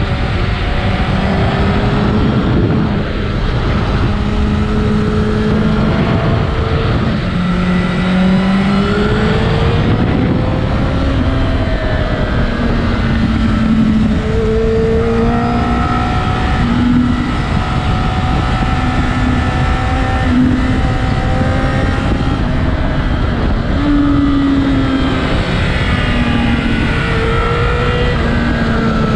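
2008 Honda CBR1000RR Fireblade's inline-four engine pulling hard while riding, its pitch climbing and dropping again and again with throttle and gear changes, over a heavy rush of wind noise.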